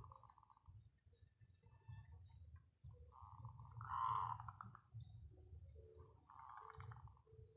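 Zebra doves (perkutut) cooing: three soft, rolling, trilled call phrases, the middle one the loudest, with short low notes between them.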